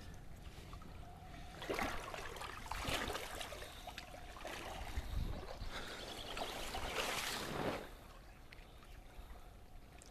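Shallow lake water sloshing and splashing, with a wet plastic unhooking mat rustling, as a wels catfish is slid off the mat into the water. The sound comes in several swells for about six seconds, then settles to quiet lapping.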